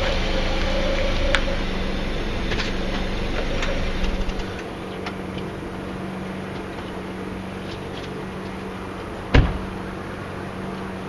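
A car running with a steady low hum; the deeper rumble drops away about four seconds in, and a single sharp thump is heard near the end.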